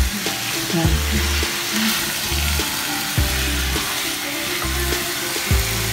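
Chicken pieces and chopped onion sizzling in a nonstick frying pan as a spatula stirs them: a sauté (gisa) over high heat.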